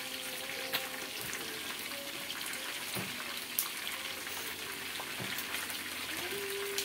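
Sardines frying in a pan of oil, a steady sizzle, with a few sharp clicks of metal tongs against the pan as the fish are turned.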